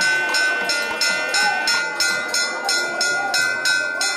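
A metal bell clanging rapidly and evenly, about three to four strikes a second, over its own steady ringing tone, with crowd voices underneath.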